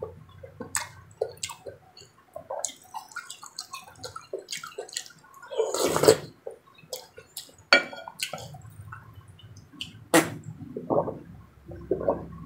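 Close-up eating sounds of rice porridge with vegetables: a run of short, wet mouth clicks and smacks from chewing, with a louder, longer slurp about six seconds in.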